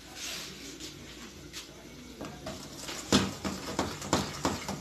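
Spatula stirring thick chocolate frosting in an aluminium saucepan, knocking against the pan about three times a second in the second half.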